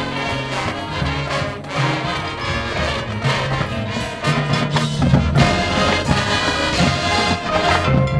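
High school marching band playing its field show: brass horns holding chords over drumline and front-ensemble mallet percussion.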